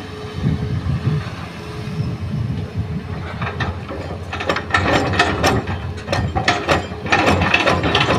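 Hitachi hydraulic excavator's diesel engine running under load as it digs and swings a bucket of soil over to a dump truck. From about four and a half seconds in there is a run of rapid clattering and rattling.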